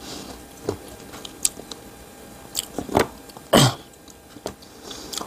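A person chewing chicken from samgyetang: scattered wet mouth clicks and smacks, with a sharper one about three and a half seconds in.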